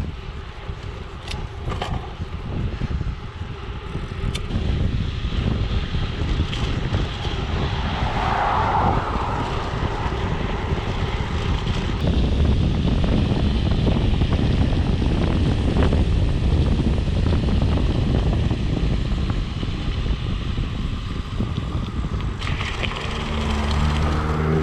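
Mountain bike rolling over a rough surface: steady tyre noise with scattered clicks and rattles, under heavy wind rumble on the microphone that grows louder about halfway through. A short rising whine comes in near the end.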